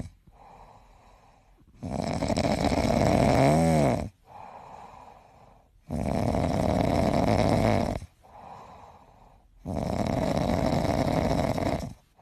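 A sleeping cat snoring: three long, loud snores about four seconds apart, with quieter breaths between them. The first snore ends with a brief wavering whistle.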